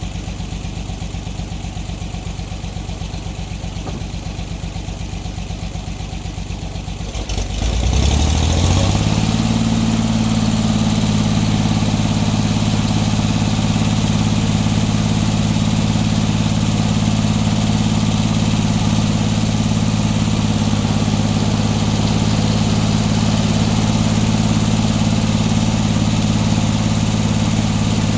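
Sawmill engine idling with an even beat, then revved up about seven seconds in and held steady at higher speed, brought up to speed for a cut.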